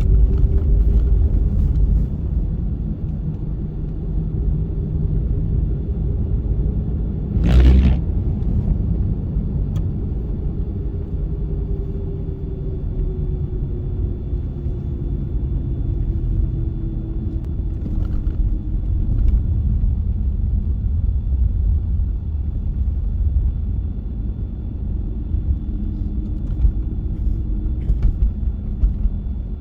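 Car driving on a snowy road in a snowstorm: a steady low road and engine rumble, with one short loud thump about eight seconds in and a few light ticks near the end.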